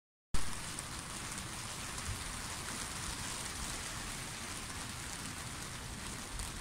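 Steady hiss of rain falling, cutting in abruptly a moment in.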